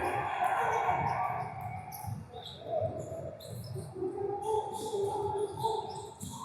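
Sneakers squeaking in short, scattered chirps on a gym court floor during play, over background chatter in the hall.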